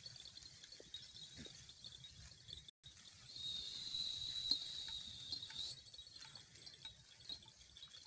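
Faint field background with an insect's steady high-pitched buzz that swells for a couple of seconds in the middle, over light scattered ticks; the sound drops out for an instant just before the buzz.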